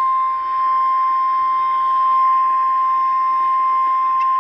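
NOAA Weather Radio's 1050 Hz warning alarm tone: one loud, steady, high-pitched tone held without a break. It is the signal that a warning broadcast is about to follow.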